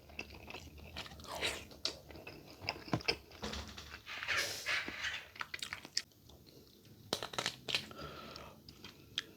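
Close-miked eating: chewing and crunching with scattered sharp clicks and mouth smacks, in short irregular bursts.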